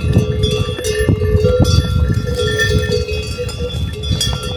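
Several animal bells of different pitches clanking together over and over, like the bells hung on pack animals on a mountain trail, with irregular low knocks underneath.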